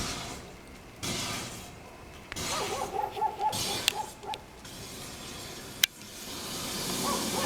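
A burning car: a hissing rush of fire, broken by sharp cracks and pops about 4 seconds in and again, loudest, near 6 seconds. A dog barks in quick runs around the middle.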